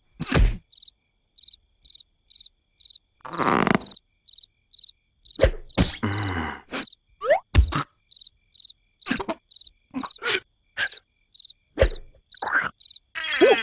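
Cartoon night ambience of crickets chirping steadily, about two chirps a second, broken by short sharp knocks and brief vocal squeaks and glides from the cartoon larvae.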